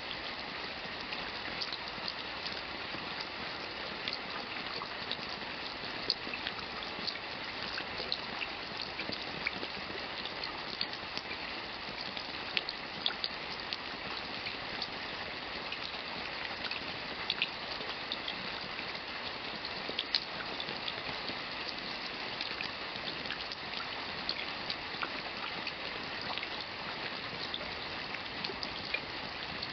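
Steady rain, a soft even hiss with many separate drops ticking sharply against a surface at irregular moments.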